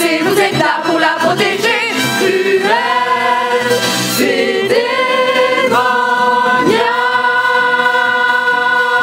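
Musical-theatre cast singing together, the melody moving for a few seconds and then settling on one long held final note from about six seconds in.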